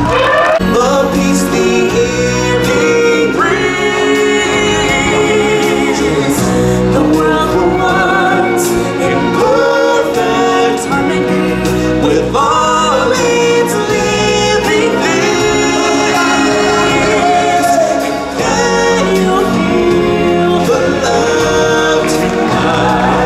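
A choir singing over loud backing music, with several voices carrying held, gliding notes.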